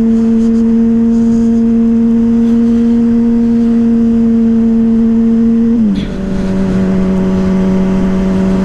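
Yamaha Fazer 600 inline-four motorcycle engine running under way at a steady pitch through its WR slip-on exhaust. About six seconds in, the pitch drops abruptly and settles at a lower steady note, with a brief dip in loudness.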